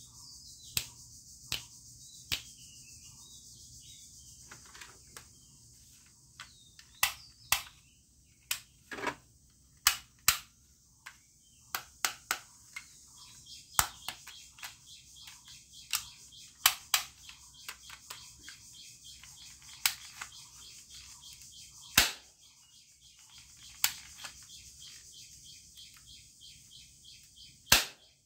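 Plastic toy shotgun being handled and worked: sharp, irregular plastic clicks, often one or two a second and sometimes in quick pairs, over a steady high hiss.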